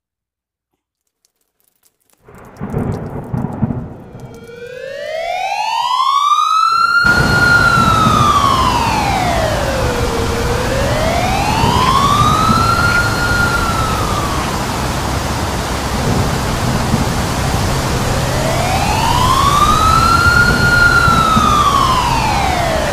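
A rumble of thunder about two seconds in, then an outdoor tornado warning siren winding up and wailing slowly up and down in pitch over a loud steady wash of rain and wind. The siren fades out midway and returns a few seconds later.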